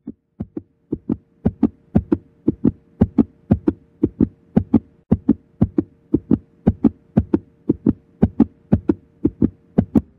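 Steady, heartbeat-like beat of low thumps, about three a second, over a held humming tone.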